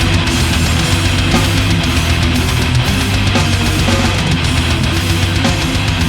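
Heavy metal music without vocals: distorted electric guitars, bass and a drum kit playing dense and loud.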